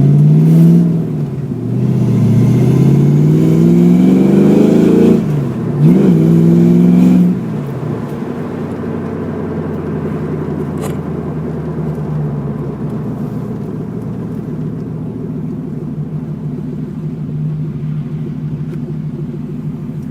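1987 Ford Mustang GT's 5.0-litre V8 accelerating hard, its note climbing and dropping back three times as it goes up through the gears in the first seven seconds. It then settles into a steady, quieter drone of cruising.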